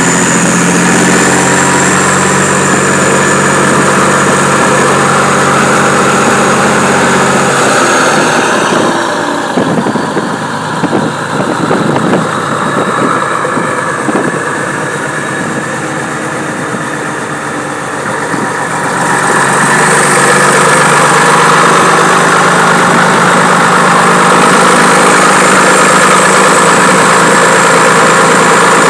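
Old Scania truck's diesel engine running with a deep rumble. About 8 s in it drops quieter and rougher, pulsing unevenly for around eleven seconds. Then it picks up again to a steady, louder run.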